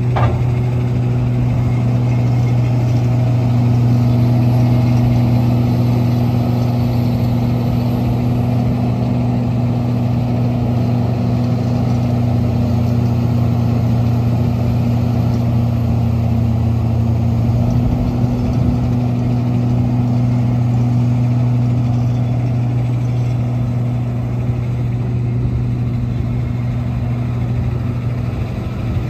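Komatsu PC600LC-8 excavator's diesel engine running with a steady low hum while the machine works its boom and bucket.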